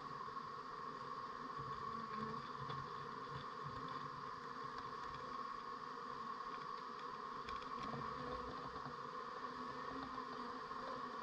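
Steady hum of a honeybee colony buzzing on the comb inside the hive, with a few faint ticks.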